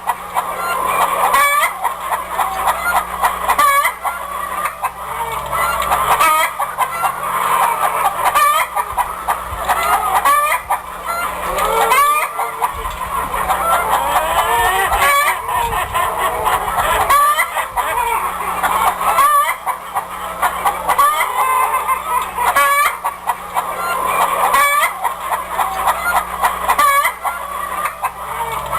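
A flock of chickens clucking and calling, many short calls overlapping without a break.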